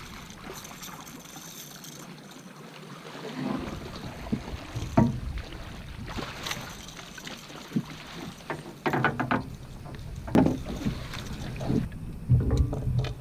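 Irregular knocks and bumps against the boat, with water splashing, while a large blue catfish is fought alongside the boat on a bent rod. The knocks are loudest about five seconds in and again in the last few seconds.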